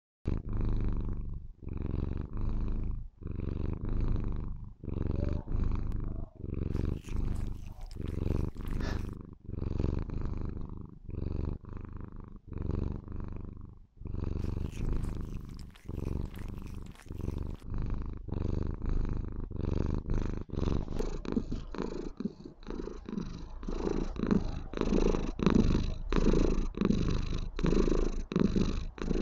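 Maine Coon kitten purring loudly while being stroked. The purr pulses with each breath in and out, and the pulses come faster in the last third.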